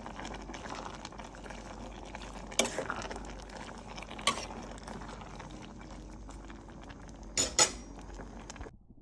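Metal ladle stirring vegetables in a stainless-steel pot of simmering curry: a steady bubbling hiss with sharp clinks of the ladle against the pot a few times, the last a quick double clink near the end. The sound cuts off suddenly just before the end.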